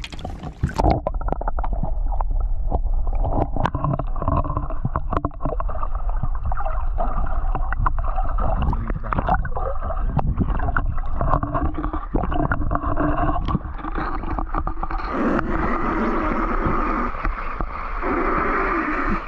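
Muffled underwater gurgling with many sharp little clicks of water and bubbles around a submerged action camera. About fifteen seconds in the sound opens up into a brighter, steady sloshing and rushing of water as the camera comes back out.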